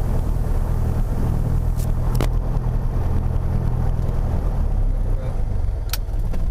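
Piper PA-28 Warrior III's four-cylinder Lycoming engine idling steadily on the ground, heard from inside the cockpit, with a few sharp clicks as panel switches are flipped.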